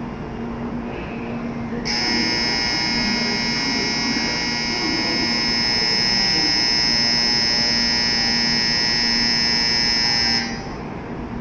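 Shinkansen platform departure bell ringing steadily for about eight seconds, starting suddenly about two seconds in and cutting off near the end: the signal that the train is about to depart and the doors will close.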